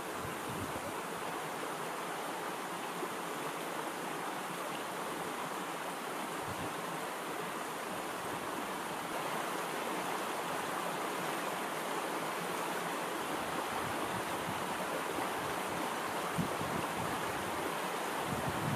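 Steady, even rushing noise like flowing water, growing slightly louder about halfway through.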